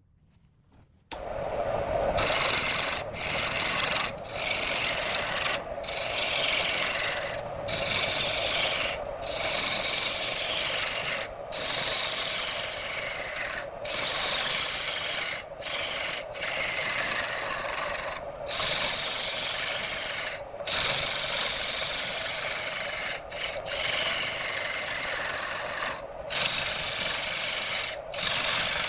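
Turning tool cutting into a piece of wood spinning on a wood lathe: a continuous scraping noise that starts about a second in and breaks off in short gaps every one to three seconds.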